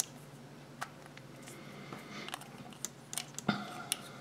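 Small plastic toy figure being handled and snapped together on its base: a scatter of faint clicks and taps, the loudest about three and a half seconds in.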